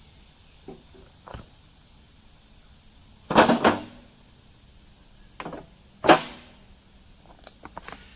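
Irregular knocks and thumps: a loud double knock about three seconds in, two more knocks a couple of seconds later, and a few light clicks near the end.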